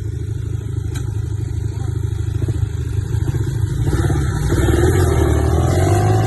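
Tornado 250 quad's single-cylinder engine running under throttle, its pulsing rumble building louder about two thirds of the way in as it revs up and accelerates.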